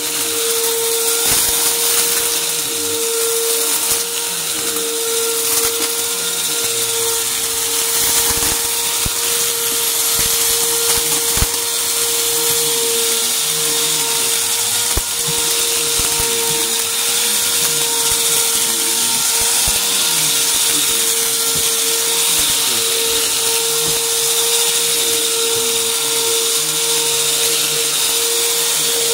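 Bagless upright vacuum cleaner running over carpet with a steady motor whine, crunching up scattered debris with irregular crackle and a few sharp clicks as bits hit the nozzle and canister.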